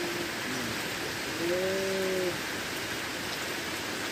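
Steady hiss of rain falling on river water. About a second and a half in, one short low call with a slightly arching pitch sounds briefly over it.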